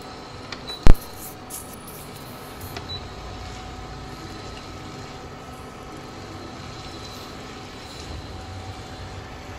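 Wooden spatula stirring and scraping a thick prawn curry in a nonstick kadai, with one sharp knock about a second in, over a steady machine hum.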